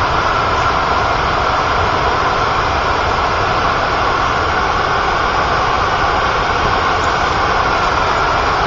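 Floodwater rushing over Lookout Dam's spillway on the Catawba River: a loud, steady wash of water noise with no let-up.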